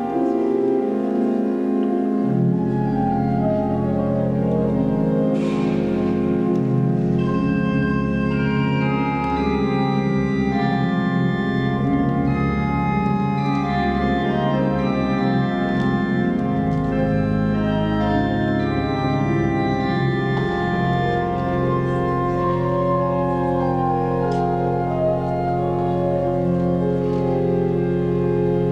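Pipe organ playing slow, sustained chords, with a low pedal bass coming in about two seconds in, in a large stone cathedral.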